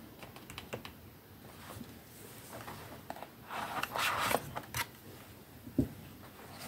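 Cardboard rustling and scraping as a small cardboard box is pried and slid out of a tightly packed cardboard advent calendar tray, loudest around the middle, with a few light clicks in the first second and one sharp knock near the end.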